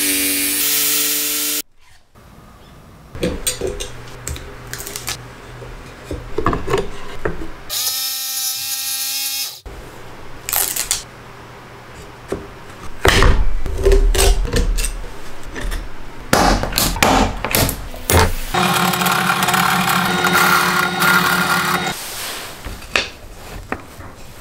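Bosch jigsaw motor running in a few short runs as it cuts plywood, with clicks and knocks of wood and tools being handled between the runs.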